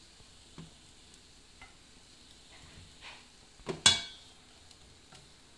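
Chopped onion frying in a pan with a faint sizzle, with soft knocks of the onion being moved about, then one sharp metallic clink with a brief ring about four seconds in.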